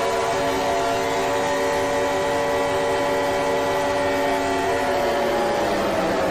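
Steady, buzzy electronic alarm tone over a hiss, from a mock Emergency Alert System alert; its higher tones fade about five seconds in.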